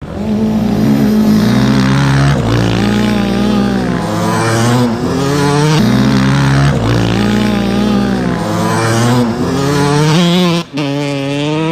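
Motocross dirt bike engine revving hard, its pitch climbing and dropping again every second or two as the rider works the throttle and gears around the track. The sound cuts out briefly near the end.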